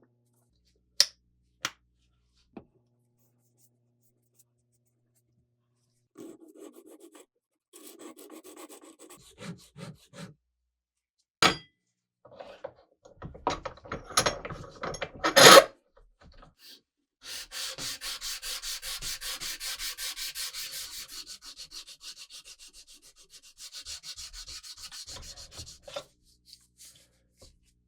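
Hand sanding of parts of an antique french fry cutter during its rust-removal restoration: quick, regular back-and-forth scraping strokes in two long runs in the second half. Before them come a few sharp clicks and knocks of parts being handled, the loudest just past halfway.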